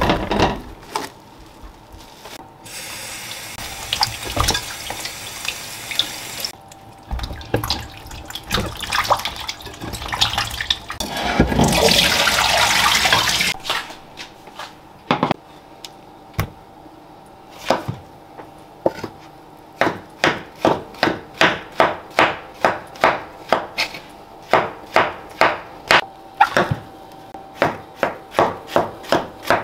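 Kitchen tap running into a bowl of button mushrooms being rinsed, in two spells, the second louder. Then a knife slicing mushrooms on a wooden cutting board, even knocks about two a second.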